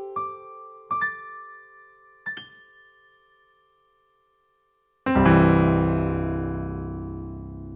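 Donner DDP-80 digital piano being played: a few single notes struck and left to ring out, fading to silence. About five seconds in, a loud full chord with deep bass is struck and rings on, slowly decaying.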